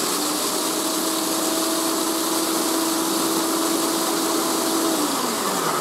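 Electric food processor running on high, grinding Cheerios into a fine powder for breadcrumbs: a steady motor whirr with a hum. Near the end the hum sinks in pitch as the motor slows.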